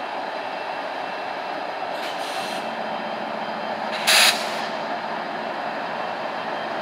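Train cars rolling past on the rails with a steady rolling noise, a low steady tone joining about two and a half seconds in. A brief, loud burst of noise about four seconds in.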